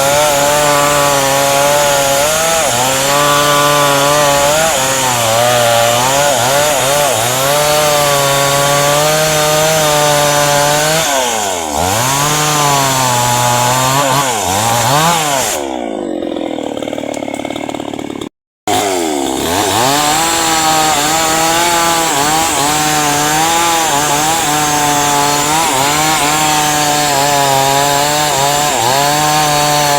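Two-stroke chainsaw cutting into a tree trunk, its engine pitch dipping and recovering repeatedly as the chain loads up in the wood. About halfway through the pitch sinks lower and the sound fades, cuts out for an instant, then the saw is back at full cut.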